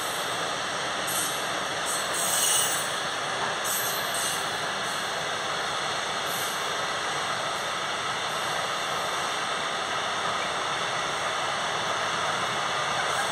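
Freight train wagons carrying tank containers and intermodal containers rolling past with a steady rumble of wheels on rail. Brief high-pitched wheel screeches come several times in the first few seconds, the loudest about two and a half seconds in.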